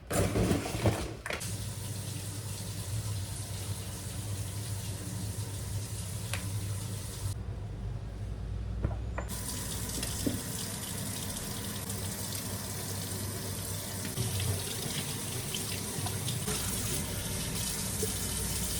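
Kitchen tap running into a sink, a steady rush of water with a few faint knocks, likely dishes being rinsed. The hiss of the water thins for about two seconds near the middle.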